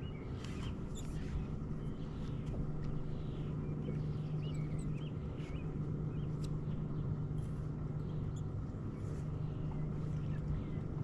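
Steady low hum of a bass boat's electric trolling motor. Scattered short, high, curling chirps and a few light clicks sound over it.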